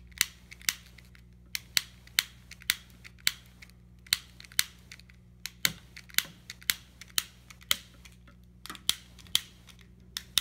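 Portable arc source snapping out sparks: sharp clicks about twice a second, irregularly spaced, over a steady low electrical hum. The arcs simulate the micro-arcing of a loose meter socket connection, a hot socket.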